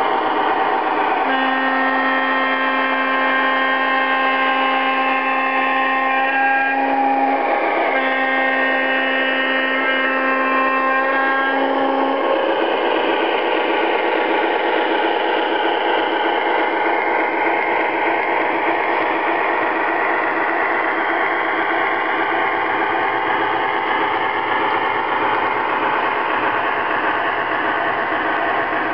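Lionel RS-11 model diesel locomotive sounding its horn: a held blast, a brief break, then a second held blast, over the locomotive's running noise. After that comes the steady rolling rumble of the O scale freight train passing close by on the track.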